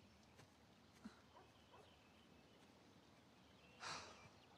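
Near silence: faint outdoor room tone, with a tiny click about a second in and a short, soft hiss of noise near the end.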